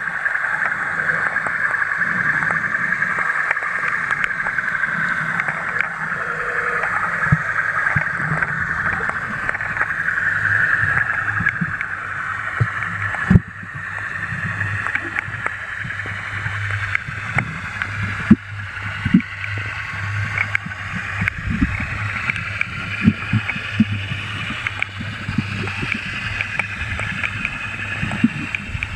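Muffled underwater noise picked up by a camera in a waterproof housing on a snorkeling descent, a steady hiss and low hum broken by many scattered clicks and knocks.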